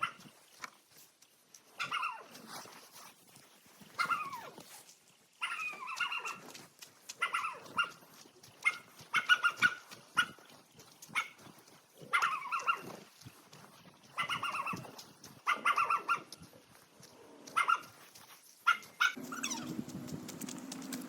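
An animal calling over and over, short pitched calls about every second or so, like a dog barking. Near the end a steady low hum comes in.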